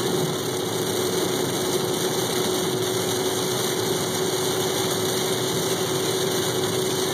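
Steady noise inside a car's cabin while driving on a wet highway in rain: tyres on the soaked road, rain and engine blending into an even rush, with a steady hum underneath.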